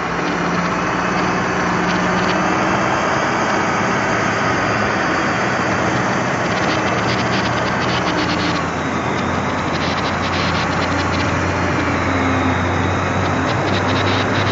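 Heavy truck's diesel engine running steadily close by, a low hum under a constant rushing noise.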